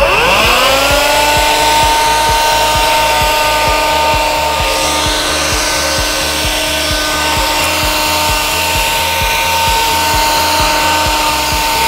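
Electrolux Ergorapido ZB3423B handheld vacuum cleaner with its UV mattress nozzle switching on: the motor spins up within about half a second, then runs with a steady high whine as the nozzle is passed over a mattress.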